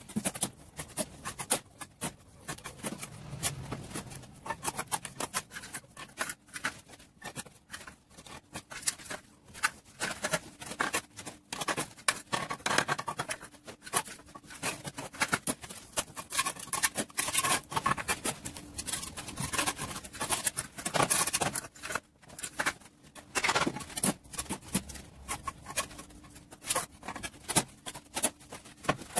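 Dense, irregular clicking and scraping of masonry hand-tool work, like a trowel working mortar and stone.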